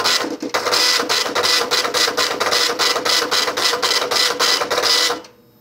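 Dot-matrix printer of a military AN/UGC-74B teletype terminal printing its start-up message. The print head chatters in rapid, even pulses as the carriage travels, the carriage motor running again on a replacement power FET. The printing stops near the end.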